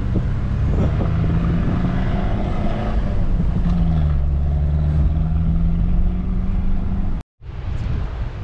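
Engine and tyre noise inside the cab of a 4x4 driving on soft beach sand, the engine note dipping a little about halfway through and then coming back up. It cuts off abruptly about a second before the end, and wind noise on the microphone follows.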